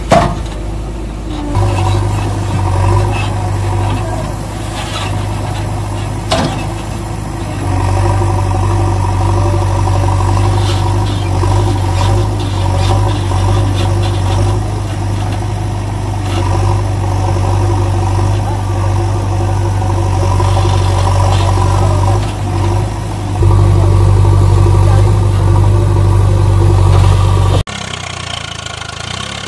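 Sound effect of a heavy diesel engine running steadily, laid over toy vehicles that have no engines. A sharp clack comes at the very start. The engine gets louder a few seconds before the end, then cuts off abruptly into a quieter, different engine sound.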